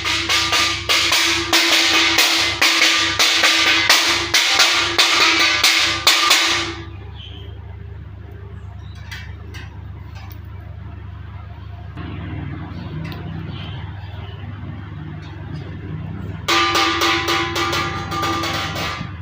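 A plate being knocked loudly and rapidly, many sharp strikes with a steady ringing tone underneath. The knocking stops after about seven seconds and, after a quieter stretch, starts again near the end.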